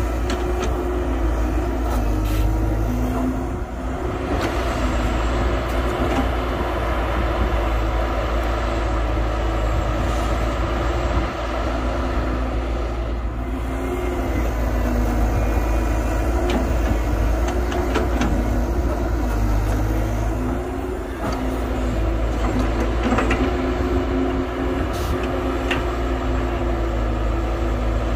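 Heavy diesel excavator engine running steadily under working load, its pitch shifting now and then, with a few sharp clanks.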